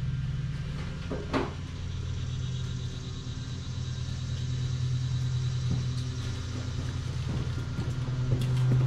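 Car running on the road, heard from inside the cabin as a steady low rumble, with a brief knock about a second and a half in.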